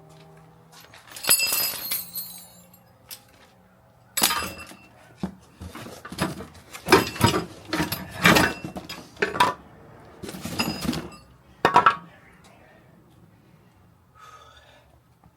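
Metal clinking and clanking: a string of sharp knocks with a bright ring, a cluster about a second in, then many more from about four to twelve seconds in.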